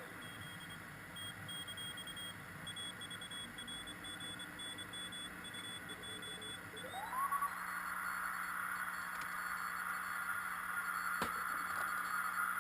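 Receiver audio from a Frog Sound QRP CW transceiver tuned to the 40 m band: steady hiss of band noise with faint on-off beeps. About seven seconds in, a whistle glides upward and then holds.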